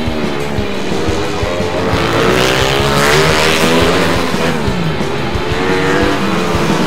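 Flat-track racing motorcycle engines revving hard and passing at speed. The engine note climbs to a peak about three seconds in, falls away, then rises again near the end. Music plays underneath.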